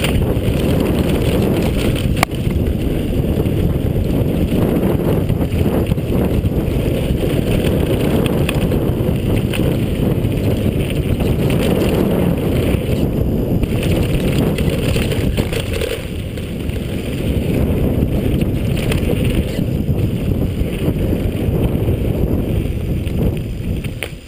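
Wind buffeting a handlebar-mounted camera's microphone and the tyres of a Demo 8 downhill mountain bike rumbling over a dirt trail at speed, with scattered clicks and knocks from the bike. The noise dies away at the very end as the bike slows.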